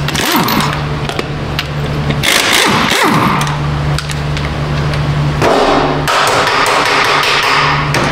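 Metal tool work on a pickup's front wheel hub: repeated sharp strikes over a steady low hum that drops out briefly a few times.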